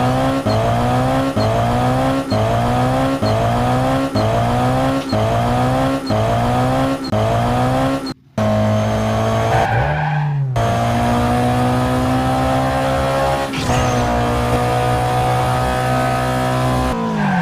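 Race car engine revving hard, its pitch climbing and dropping back about once a second. After a brief cut it holds a long high note, and its pitch falls away at the end.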